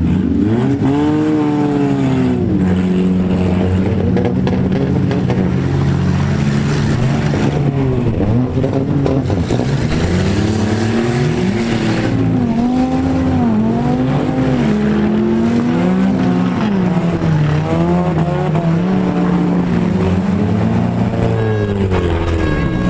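Engines of several compact demolition derby cars revving up and down over and over, their overlapping notes rising and falling.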